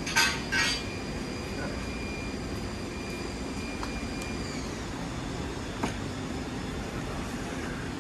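Steady workshop hum with two sharp metallic clatters in the first second and a single knock near six seconds in, typical of tools and parts being handled during a motorcycle tear-down. A faint high whine runs underneath and dips slightly in pitch about halfway through.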